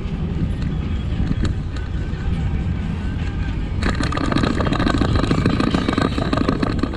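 Rolling bicycle ride heard from the bike: a steady rumble of wind and tyre noise on the path. About four seconds in it turns to a busier clattering rattle as the bike rolls onto a stretch of painted crosswise stripes.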